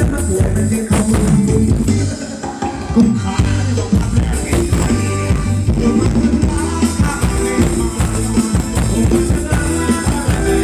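Thai luk thung dance music played by a live band, with a drum kit and bass keeping a steady beat under pitched melody instruments.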